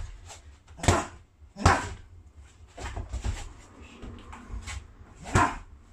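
Three sharp, dull impacts of strikes landing on a padded target in a clinch, one about a second in, another just after, and a third near the end, with scuffing and shuffling of bodies and feet on the mat between them.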